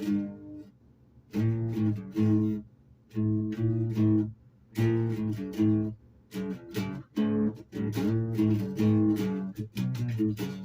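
Guitar music: chords played in short phrases with brief pauses between them.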